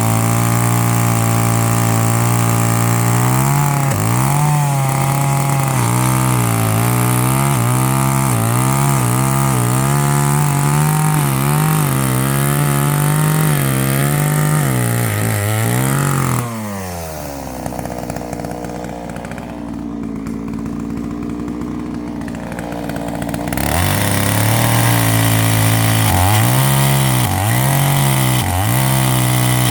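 Chainsaw cutting firewood at full throttle, its engine note dipping again and again as the chain bites into the wood. About sixteen seconds in it drops back to a quieter idle for several seconds, then revs up and cuts again, dropping off once more near the end.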